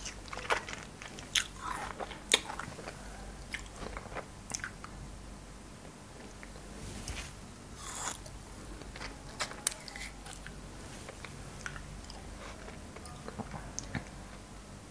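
Close-miked biting and chewing of frozen cherries: sharp, icy crunches and clicks, thickest in the first few seconds, then scattered chewing with a louder crunch about eight seconds in.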